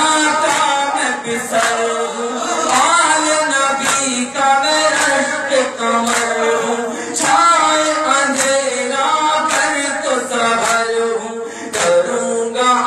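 Men chanting a nauha, a Shia mourning lament, as a group into a microphone, unaccompanied by instruments. Sharp hand strikes on the chest (matam) come roughly once a second under the chant.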